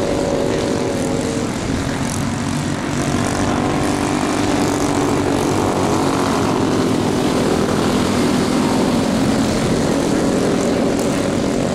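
Several small 120-class youth racing snowmobiles running hard around the course, their engines making a steady high buzz whose pitch falls and rises as the sleds slow for turns and accelerate out again.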